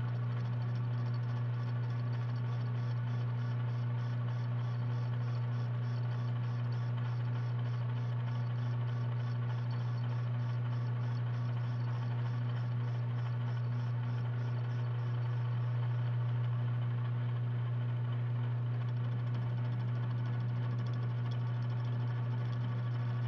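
Jet BD-1340-R metal lathe running with a steady low hum, its spindle turning a square steel block in a four-jaw chuck at slow speed while a high-speed steel bit takes a facing cut.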